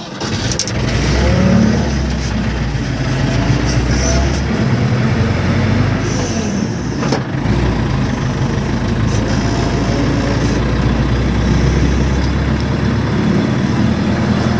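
Hydra crane's diesel engine running under load as the crane drives along the road, heard from inside its cab. The engine picks up and gets louder over the first second or two, then holds a steady note, with a short dip about halfway through.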